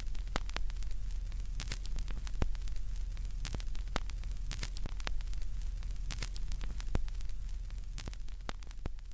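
Vinyl record surface noise: steady hiss and a low hum, with irregular crackles and pops from the needle in the groove.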